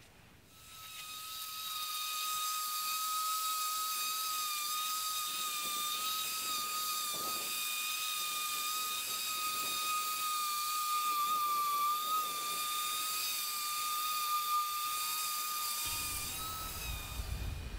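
Orbital sander running steadily against the cast-iron knee of a Bridgeport mill: a high, even whine over a hiss. It starts about half a second in and stops shortly before the end.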